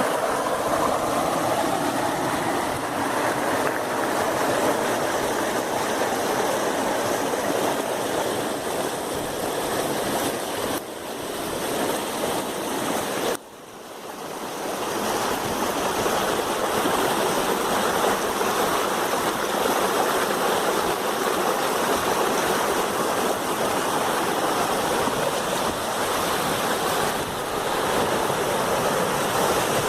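River water rushing steadily over a small waterfall and rocks. About halfway through the sound drops away suddenly, then swells back over a couple of seconds.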